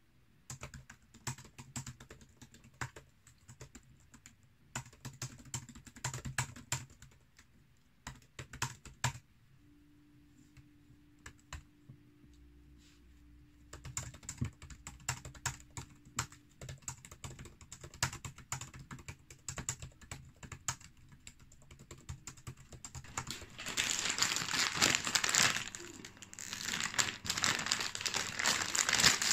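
Typing on a MacBook Air laptop keyboard: irregular runs of soft key clicks, with a sparser pause about ten seconds in. Near the end, a louder crinkling of a plastic instant-noodle multipack being handled.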